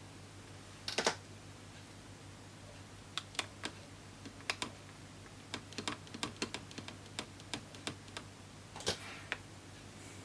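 Small sharp clicks and taps, irregular like typing, of tools and small phone parts being handled during iPhone reassembly, with a short cluster about a second in, scattered single clicks through the middle, and another cluster near the end.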